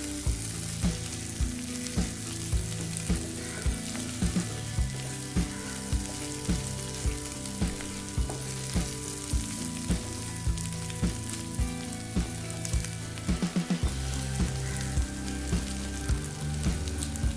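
Chicken pieces sizzling as they dry-roast in a nonstick pan, in the last stage of roasting, stirred with a wooden spatula. Regular knocks come about twice a second, with a quick run of them about thirteen seconds in.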